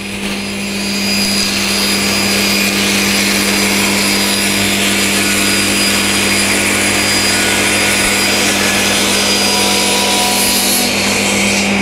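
Cabinet table saw with a high-quality fine-tooth blade cutting through a melamine-faced particleboard panel. This is the full-depth pass, made with the blade about 10 mm above the board after a shallow scoring cut, a two-pass method for a chip-free edge. The cutting noise builds in the first second as the board is fed in, runs steadily, and its tone changes slightly near the end.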